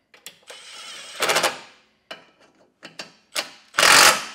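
Milwaukee cordless impact driver with a socket extension running bolts: about a second in, a spell of motor whine ends in a short burst of hammering. A few light clicks follow, and near the end comes a louder burst of hammering.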